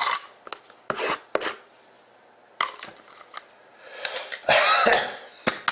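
Cardboard box of hockey trading cards being handled and opened: scattered light knocks and clicks, then a longer scraping rustle about four and a half seconds in.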